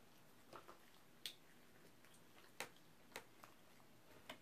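Near silence broken by about six faint, sharp clicks and crackles, scattered unevenly, from crispy fried chicken being picked up and pulled apart with the fingers.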